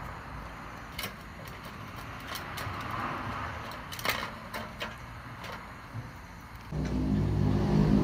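Dog eating from a bowl, with scattered sharp clicks and licks. About seven seconds in comes a loud, low, drawn-out belch lasting about two seconds.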